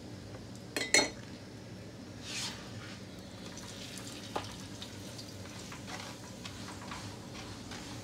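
A metal spoon clinks twice, sharply, about a second in. Then come quieter scrapes and taps of a spatula turning a ghee-brushed paratha on a hot tawa, with a faint sizzle, over a steady low hum.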